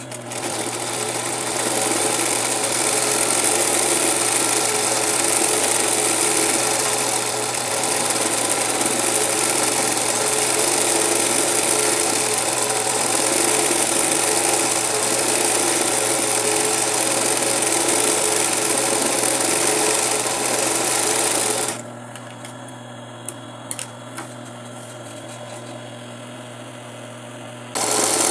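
Industrial zig-zag sewing machine (a 20U) sewing a satin-stitch appliqué outline, running steadily for about twenty seconds. Near the end it stops sewing with a few light clicks while a quieter hum goes on, then starts sewing again just before the end.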